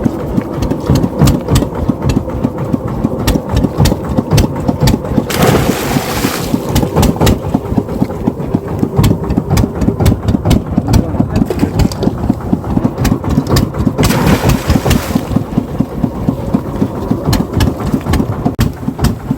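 A fishing boat's engine running with a fast, regular low thumping, and two short rushes of noise, about five and fourteen seconds in.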